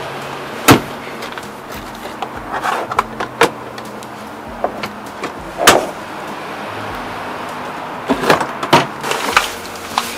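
Scattered clicks and knocks of things being handled inside a small car, with a sharp loud knock about a second in, another near six seconds, and a cluster near the end, over faint background music.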